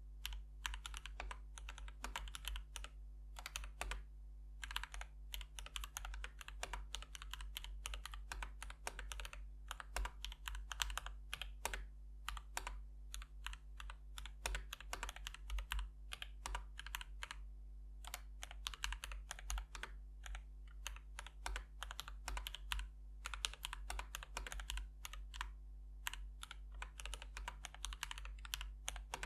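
Typing on a mechanical keyboard with linear switches (Akko CS Vintage White and Gateron Cap Teal, heard for comparison), fast keystrokes in bursts with short pauses. A steady low hum lies underneath.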